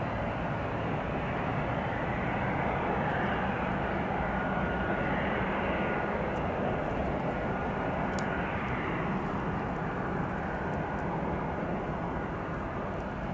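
Jet engines of Airbus A320-family airliners taxiing: a steady rumbling rush with a faint high whine, swelling a little a few seconds in and easing off toward the end.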